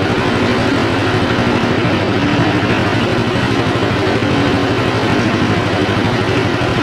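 Lidi (palm-leaf midrib) cleaning machine running steadily under power, with a continuous engine-like drone and rapid fine pulsing.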